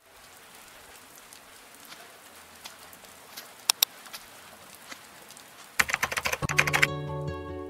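Faint hiss with scattered light clicks and taps, and two sharp clicks about halfway through. Near the end comes a quick burst of rapid clicking, then music with held, bell-like notes begins.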